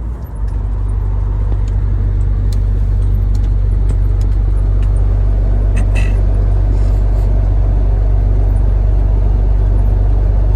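Truck engine and road drone heard inside the cab, a steady low hum. Right at the start the sound dips for a moment and the engine note settles a little lower, then runs on evenly with a few faint clicks.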